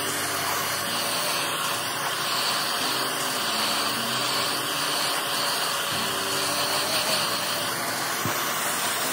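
Hand-held hot-air blower running steadily, a constant rushing airflow with a faint steady whine from its fan motor.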